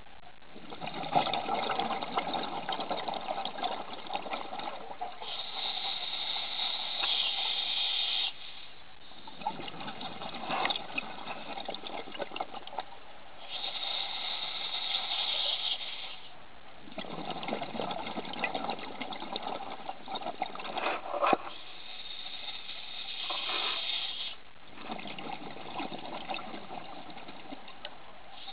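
Scuba diver's regulator breathing underwater: three slow breaths about eight seconds apart, each a gurgling rush of exhaled bubbles followed by the hiss of an inhale through the regulator. Two of the exhales end with a sharp click.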